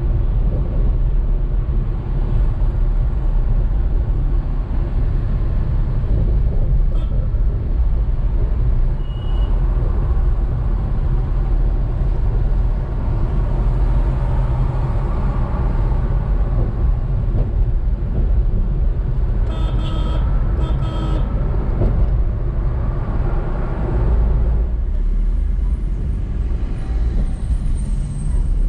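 Steady low rumble of road and engine noise from a car driving in city traffic, with a quick series of short vehicle horn toots about two-thirds of the way in.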